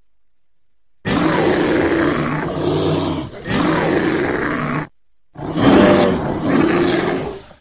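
Bear growling: one long growl of about four seconds with a brief break in the middle, then a second growl of about two seconds.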